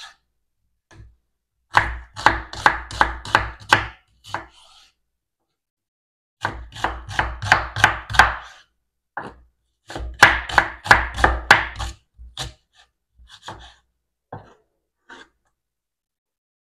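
Kitchen knife chopping an onion on a wooden cutting board: three quick runs of cuts, about four or five strokes a second, then a few scattered cuts near the end.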